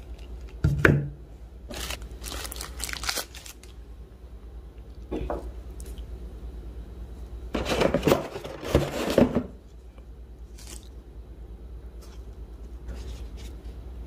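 Hands handling a cordless spin scrubber's attachment pads and plastic packaging: crinkling, rustling and scraping in several short, irregular bursts, over a low steady hum.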